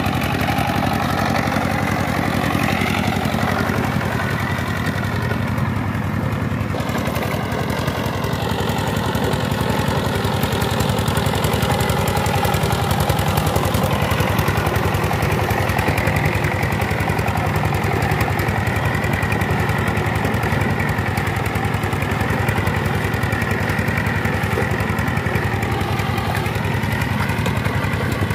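Power tiller's single-cylinder diesel engine running steadily at working speed while the walking tractor churns through wet paddy mud.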